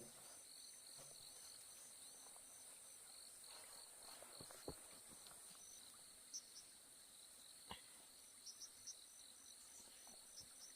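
Near silence with faint insects chirring: a steady high-pitched pulsing that goes on evenly throughout, with a few faint scattered knocks.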